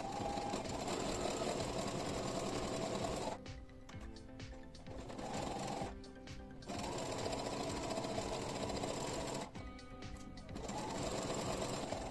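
Brother electric sewing machine stitching a seam through two layers of fabric, running in four short bursts and stopping briefly between them.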